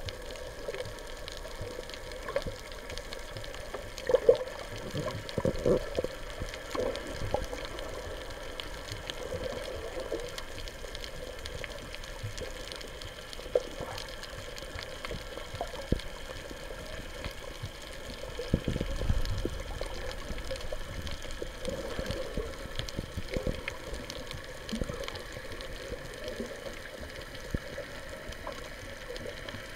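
Water sloshing and bubbling around a camera held just under the sea surface while snorkelling, heard muffled through the water, with irregular small splashes and knocks. There is one longer low rush of water about two-thirds of the way through.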